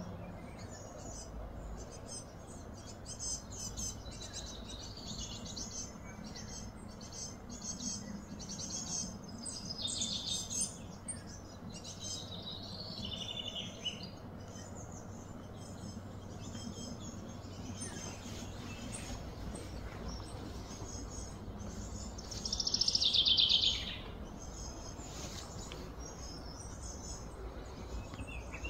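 Outdoor ambience of many small birds chirping and trilling, with one louder buzzy call lasting about a second and a half near the end, over a faint steady background hum.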